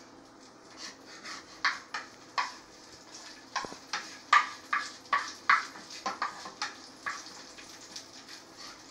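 A utensil scraping and tapping against a frying pan while eggs are stirred, in short irregular strokes about one or two a second.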